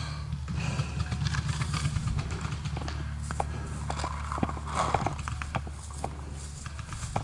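Running footsteps of a paintball player across grass, picked up by a body-worn camera, with scattered sharp knocks over a steady low rumble.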